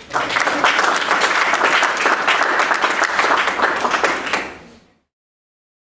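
Audience applauding, starting suddenly and fading out after about four and a half seconds.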